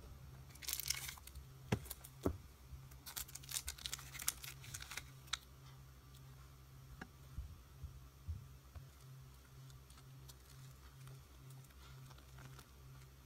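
Hands handling a manga paperback and clear plastic mini binders: plastic crinkling and sharp little clicks and knocks on a desk, bunched in the first five seconds, with a few scattered ticks later.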